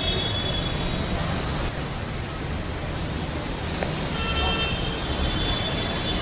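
Steady rushing of floodwater and heavy rain on a flooded street, with a vehicle horn sounding briefly about four seconds in.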